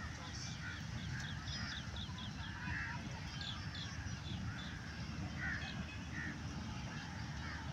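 Birds calling in the trees: scattered harsh calls, with a quick run of short, high chirps from a smaller bird about one to two seconds in, over a steady low rumble.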